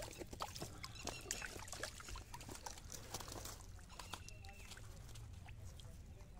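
Faint wet splashing and small slaps of live fish flapping in shallow muddy water in a fishing net, dense at first and thinning out after about three and a half seconds.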